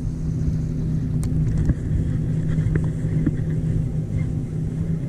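A boat motor running with a steady low hum over a low rumble, with a few faint ticks.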